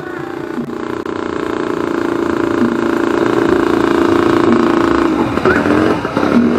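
Motorcycle engine running steadily at low speed close by, growing louder over the first few seconds, then turning uneven about five seconds in.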